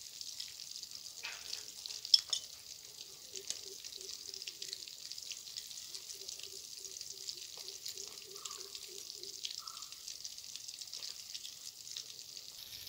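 Tilapia frying in oil in a pan, a steady sizzle, with small clicks of a knife slicing onion and tomato on a plate and one sharp click about two seconds in.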